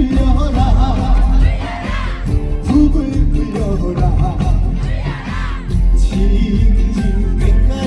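Live band music from a stage sound system, loud and steady with a wavering melody line, as the crowd cheers over it.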